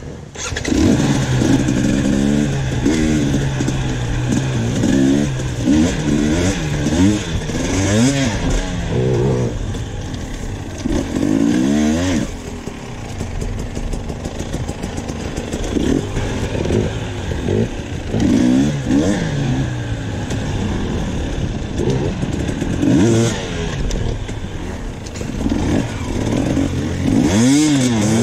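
KTM off-road dirt bike engine under riding load, revving up and down over and over as the throttle is worked, its pitch rising and falling with each burst. It comes in loud right at the start, with a brief dip about twelve seconds in.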